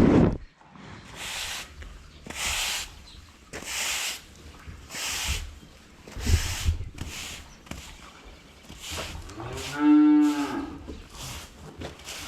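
A calf moos once, a single arching call that rises and falls, near the end. Before it comes a run of short, regular swishing or scraping strokes, about one a second.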